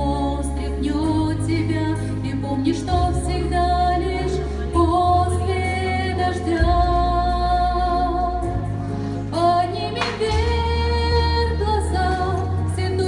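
A slow Christian song: a woman's voice singing a melody over deep held bass chords that change every second or two.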